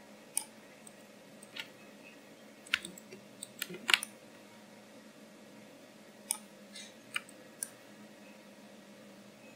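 Scattered clicks of a computer mouse and keyboard, about ten in all, with a small burst of them just before four seconds in the loudest. A faint steady hum runs underneath.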